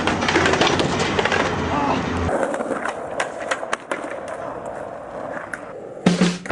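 Skateboard wheels rolling on concrete, with sharp clacks of the board popping and landing. The sound changes abruptly about two seconds in, and music starts near the end.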